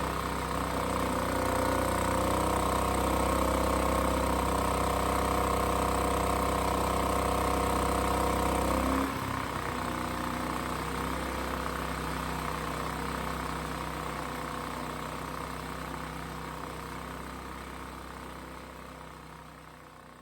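Firman inverter generator's engine running steadily after the no-start repair; its note drops suddenly about nine seconds in, then fades out over the last few seconds.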